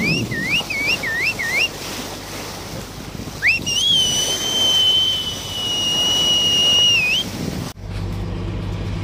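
High whistling over the noise of a running boat and water: a quick run of rising-falling chirps, about three a second, then one long held whistle that bends up at its start and end. Near the end a cut brings in a steady low engine hum.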